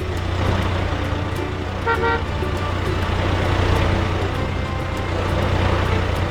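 Vehicle engine running steadily with a low rumble, and a short horn toot of a few quick pulses about two seconds in.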